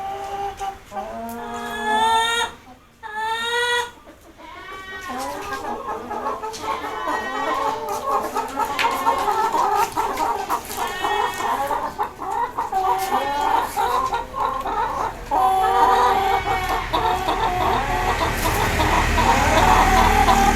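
A flock of broiler breeder chickens clucking together in a dense, continuous chorus. A few loud, repeated calls stand out about a second in.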